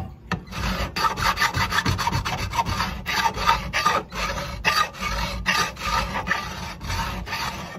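Hand file rasping along the edge of a 5 mm aluminium plate clamped in a vise, in quick repeated strokes: deburring and dressing the rough bandsaw-cut edges.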